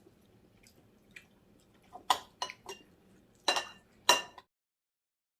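A spoon clinking against a dish five times with a short ring, as curry is scooped and eaten. The sound cuts off suddenly near the end.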